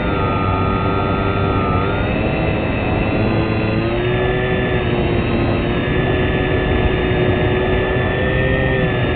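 Motor and propeller of a small fixed-wing RC plane, heard from the plane's onboard camera. It runs steadily with wind rush over the microphone, and its pitch shifts up and down a few times as the throttle changes.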